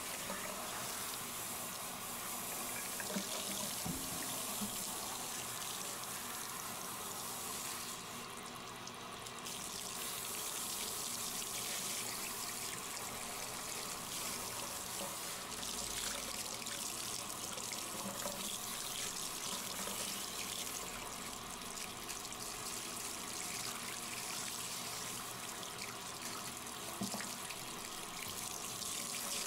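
Water spraying steadily from a handheld shower head onto a wet dog's fur and splashing into the bathtub, as the dog is rinsed of mud; the spray hisses more sharply for a moment about eight seconds in.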